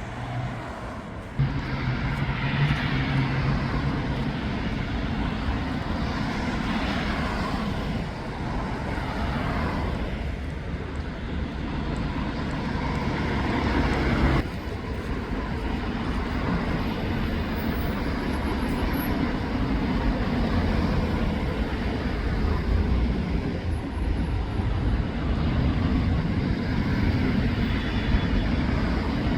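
City street traffic noise: vehicles passing, with a steady low hum over the first half. The sound changes abruptly about a second in and again about halfway through.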